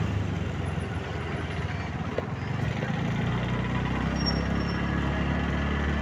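Motorbike engine running steadily under way, with road and wind noise from riding.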